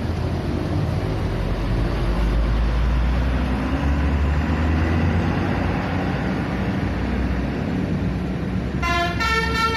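A bus engine rumbles low and steady; about nine seconds in, a multi-tone 'telolet' bus horn starts playing a quick tune of changing notes.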